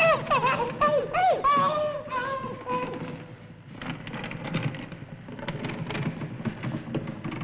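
A lazoon's high, squeaky chattering cry, its pitch bending up and down for about three seconds. Then a low rumbling with crackles: a sound effect of the rock roof coming down.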